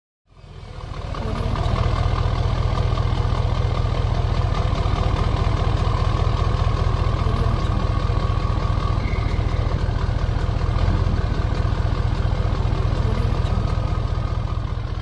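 Diesel engine idling steadily with a rapid, even pulsing. It fades in over the first couple of seconds and starts to fade out near the end.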